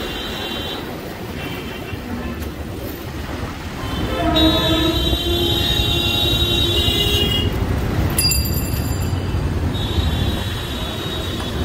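Road traffic rumble heard from a moving two-wheeler, with horns sounding over it. There are short, high-pitched honks near the start and again near the end, and a louder, lower horn held for about three seconds in the middle.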